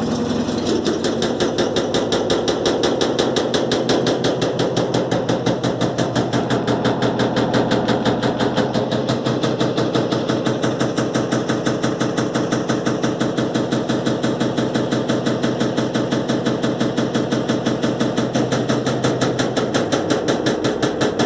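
Electrolux LTE12 top-loading washing machine in its spin cycle with an unbalanced, bunched-up load, shaking on its suspension and knocking in a rapid, even rhythm.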